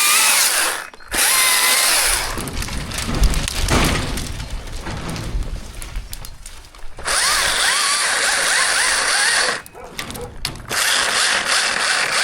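Chainsaw running at high revs in several bursts, cutting wood, dropping back briefly between them.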